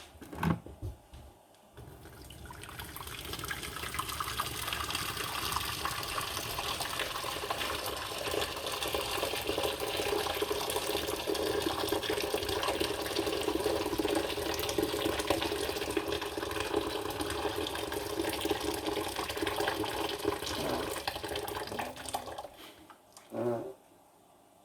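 Water running steadily from a kitchen tap for about twenty seconds, starting a couple of seconds in and cutting off near the end.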